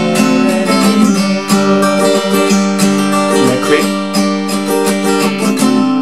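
Steel-string acoustic guitar with a capo, strummed in a quick, steady rhythm through the song's closing chords.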